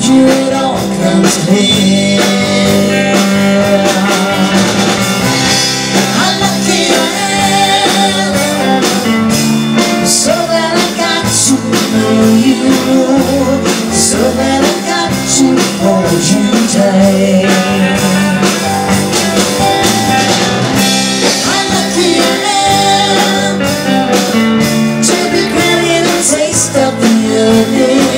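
Live band playing: two electric guitars over a drum kit, with a man singing.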